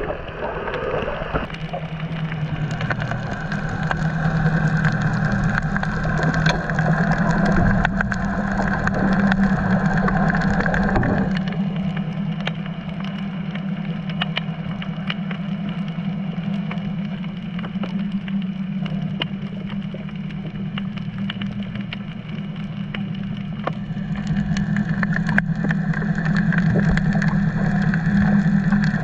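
Boat engine heard underwater: a steady low drone, changing slightly twice, with scattered faint clicks.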